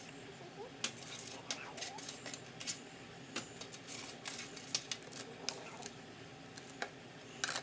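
Irregular sharp clicks and light taps of food handling: cooked chicken wings being moved around on a foil-lined metal baking sheet, and a utensil clicking in a plastic container of sauce.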